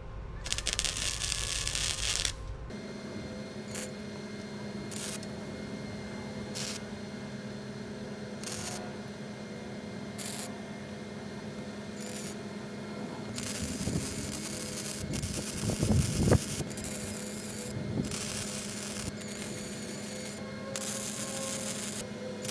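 Welding the bends of a 3/16-inch steel skid plate. The arc crackles in short bursts, a second or two apart, then in longer runs of a few seconds each over the second half, with a steady hum underneath. Near the start there is a louder burst of hiss lasting about a second and a half.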